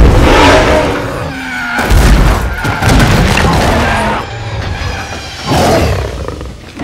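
Film action sound effects of a car race: three heavy crashes and booms, near the start, about two seconds in and about five and a half seconds in, over racing car engines and skidding tyres, as a giant ape smashes into the street among the cars.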